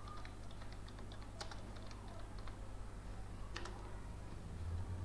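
Typing on a computer keyboard: a quick run of key clicks for the first two and a half seconds, then a single click about a second later, over a steady low hum.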